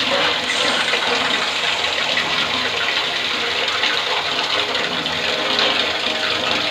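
A thin stream of water pouring steadily onto a small homemade water turbine, splashing off its spinning rotor in an even rush.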